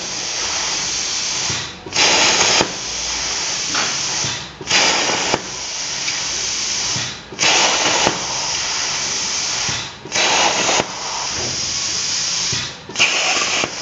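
Hypertherm plasma torch on a CNC cutting table piercing holes in steel sheet: a steady hiss of torch air, broken five times, about every 2.7 s, by a brief drop and then a louder burst of well under a second as the arc fires for each pierce.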